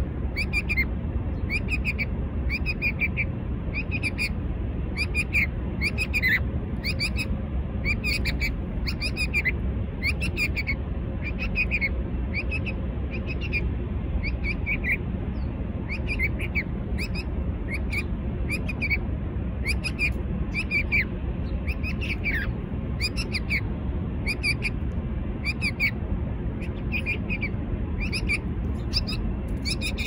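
A small bird chirping over and over in short, sharp calls, about one and a half a second, a few of them slurring downward, over a steady low rumble.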